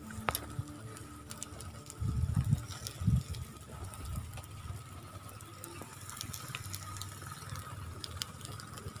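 Squid sizzling on a wire grill over a fire: a steady hiss with scattered small pops, and two brief low rumbles about two and three seconds in.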